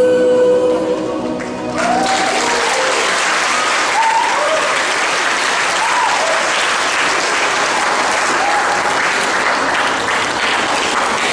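A mixed choir holds its final chord for about the first second and a half, then an audience breaks into steady applause, with a few short rising calls from the crowd mixed in.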